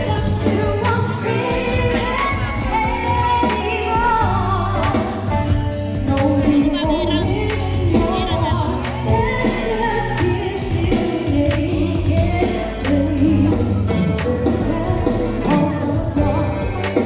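Two women singing a song together over music with a steady bass line and drum beat.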